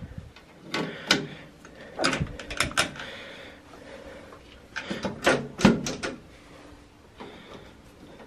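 Metal clicks and rattles of a key and key ring being worked into a tractor's ignition switch. They come in two clusters, about a second in and about five seconds in.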